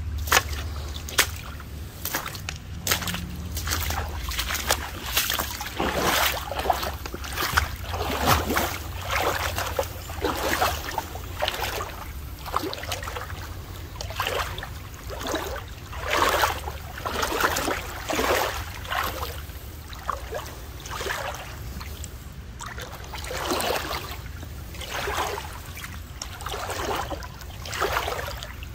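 Footsteps wading through shallow creek water: a sloshing splash about once a second.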